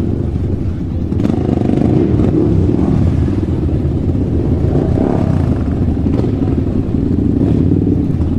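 Motorcycle engine running, the revs swelling a little about two seconds in.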